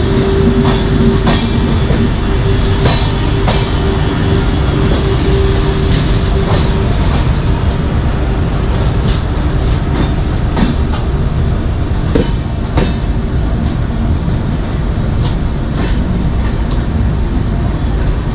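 Passenger train running along the track, heard from aboard: a steady rumble of the wheels with irregular clicks over rail joints. A steady hum runs through the first several seconds, then fades.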